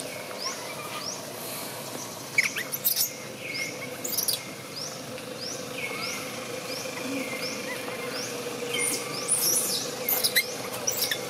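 Outdoor wildlife calls: a short, high, rising chirp repeats about every two-thirds of a second over a faint steady hum, with a few sharper squeaky calls about two and a half seconds in, around four seconds, and more near the end.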